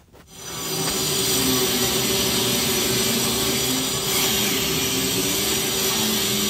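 Industrial vacuum dust collector running with a steady hum, mixed with power-tool noise from work on a mortar mosaic wall; the noise starts abruptly just after the beginning and stays loud and steady.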